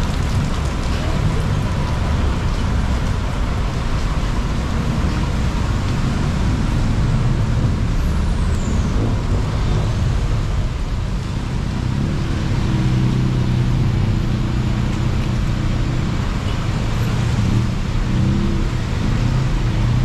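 Road traffic on a rain-wet city street, with a city bus's engine running close by. A steady pitched engine hum comes through more clearly in the second half.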